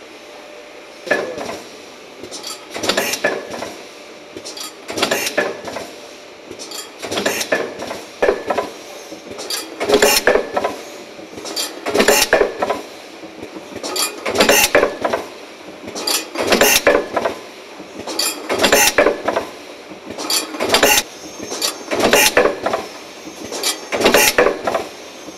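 QGQ750 automatic aerosol filling line running: metal aerosol cans clinking and clattering together in bursts about every two seconds as the line indexes, over a steady machine noise.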